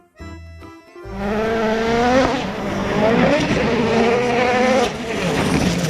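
A brief bit of jingle, then from about a second in a race car engine revving hard, its pitch climbing in a couple of rising sweeps before holding at high revs.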